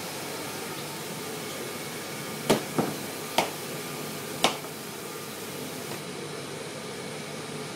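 Steady fan-like hiss with four sharp knocks in the middle, the first two close together, the last about a second after the third.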